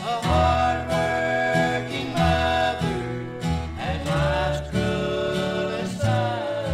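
Bluegrass band playing an instrumental passage: a held, sliding melody line over a walking bass and guitar.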